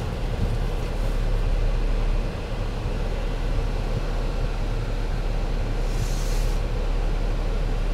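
Steady low rumble of a car idling, heard from inside the cabin, with a short hiss of a pressure-washer wand spraying water onto the windshield about six seconds in.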